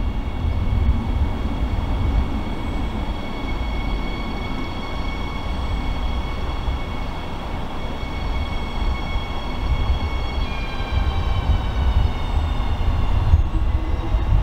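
Electric multiple unit arriving at a station: a low rumble of wheels on track under a steady high whine from its traction motors. About two-thirds of the way in, the whine starts falling in pitch as the train brakes.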